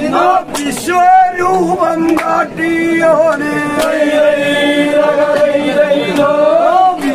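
A group of men chanting a vanchipattu, the traditional Kerala boat song, in unison. Through the second half they draw out one long note, which rises at the end.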